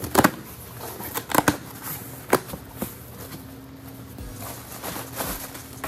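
Packaged school supplies being handled and unpacked at a desk: packaging rustling, with several sharp clicks and knocks in the first two and a half seconds.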